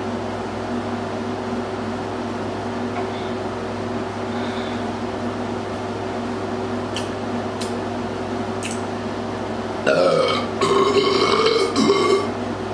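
A long, loud burp from a person who has been gulping Sprite starts about ten seconds in and lasts a couple of seconds with short breaks. A steady low hum runs underneath it, and there are a few faint clicks shortly before.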